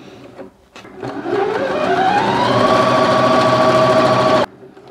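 Elna 450 electronic sewing machine stitching. Its motor winds up in pitch over about a second and a half to a steady running speed, then stops abruptly near the end.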